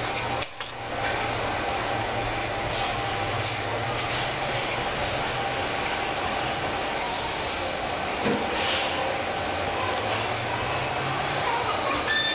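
A tyre machine spins a tyre against its pressure rollers: a steady low hum with a constant hiss over it.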